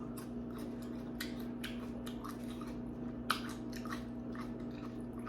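A person chewing a mouthful of thick instant noodles close to the microphone: irregular mouth clicks and smacks, with one sharper smack about three seconds in.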